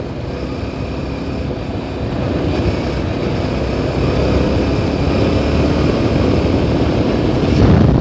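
Yezdi Adventure motorcycle's single-cylinder engine running on the move, a steady rumble mixed with rushing wind and road noise, growing gradually louder.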